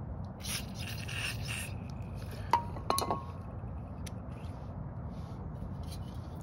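Small metal parts and tools handled while cleaning a leaf blower carburetor: a second-long high hiss about half a second in, then a sharp metallic clink about two and a half seconds in and two more just after, each with a short ring.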